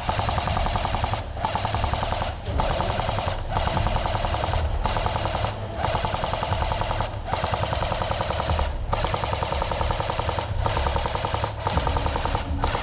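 Airsoft electric guns firing on full auto in long bursts, a fast rattle of shots broken by short pauses every second or two.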